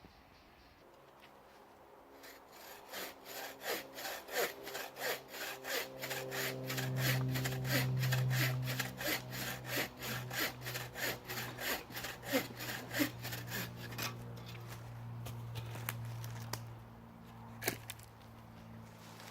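Hand saw cutting through firewood in steady back-and-forth strokes, about three a second, for some twelve seconds before stopping. A single sharp knock comes near the end.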